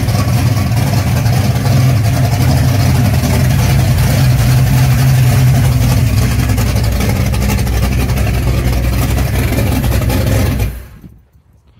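1979 Chevrolet Camaro's cammed V8 running steadily with the air cleaner off, open carburettor intake and a rowdy exhaust. It cuts off sharply about ten and a half seconds in.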